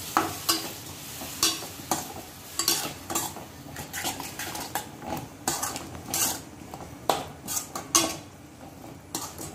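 Slotted metal spatula scraping and clinking against a kadai while stirring a thick masala paste, in irregular strokes about once or twice a second, over a low sizzle.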